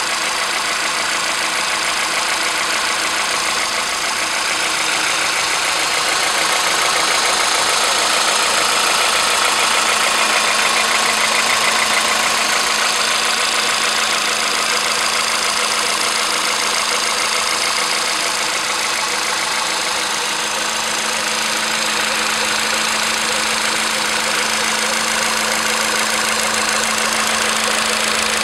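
Warmed-up Volkswagen Polo Sedan CFNA 1.6-litre four-cylinder petrol engine idling steadily, with a fine fast clatter over its hum. The owner suspects a knock in it, though the dealer heard nothing wrong.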